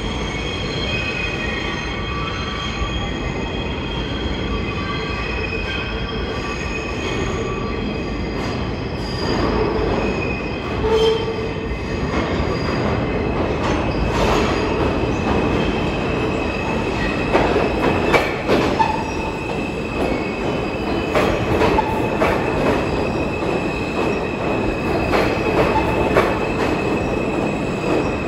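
An Alstom R160A-2 New York subway train on the R line approaches through the tunnel and pulls into the station. There is a steady high wheel squeal over a heavy rumble. About halfway in the sound grows louder and wheel clicks over the rail joints set in as the cars run alongside the platform.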